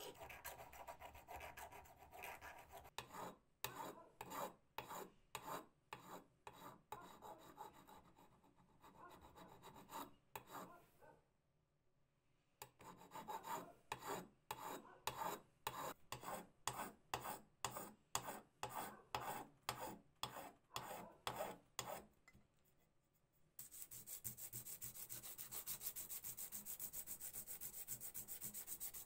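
Hand file rasping against the metal housing of a pencil sharpener in steady back-and-forth strokes, about one or two a second, with a short pause partway through. Near the end it gives way to a continuous finer rubbing, like sanding the housing smooth.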